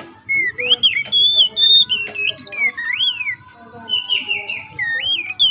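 Oriental magpie-robin singing a rapid, varied run of whistled notes that slide up and down in pitch, with a short pause a little past halfway.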